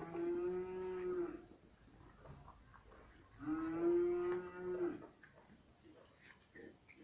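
Cattle mooing twice, two drawn-out calls of about a second and a half each at a steady pitch, the second one about three seconds after the first.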